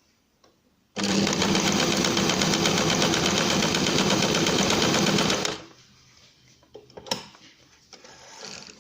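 Electric sewing machine fitted with its standard presser foot, running steadily while it stitches a straight seam. The run starts abruptly about a second in and stops after about four and a half seconds. A single sharp click follows a little later.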